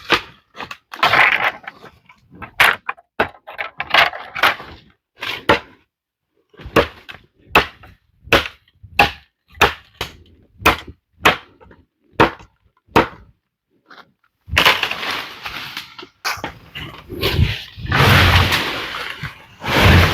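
A series of sharp cracking knocks, at times about one to two a second, followed near the end by a denser stretch of crunching and cracking.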